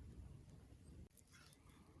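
Near silence: a faint low rumble that drops away about a second in, followed by a soft brief rustle.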